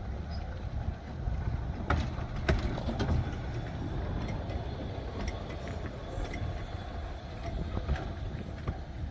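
Wind on the microphone over the low rumble of a small narrow-gauge saddle-tank steam locomotive, with a few sharp knocks about two to three seconds in.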